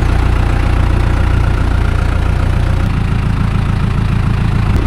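An engine idling steadily, its note changing about three seconds in.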